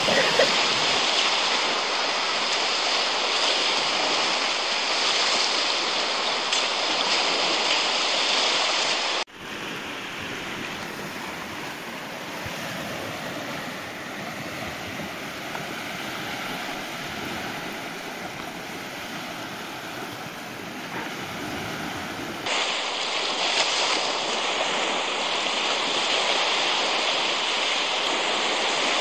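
Sea waves breaking and washing on a sandy beach in a steady rush. The sound drops quieter about nine seconds in and comes back louder near the end.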